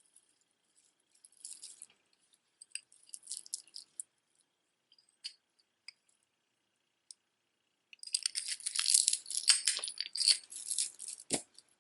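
Beaded jewelry clicking and clinking as pieces are handled: a few scattered clicks, then about three seconds of dense jangling, ending with a single knock.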